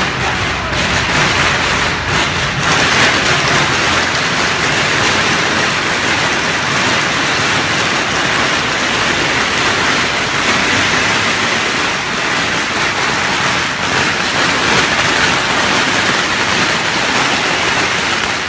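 Long strings of Chinese firecrackers going off nonstop, hundreds of rapid pops merging into one loud, dense crackle that stops abruptly at the end.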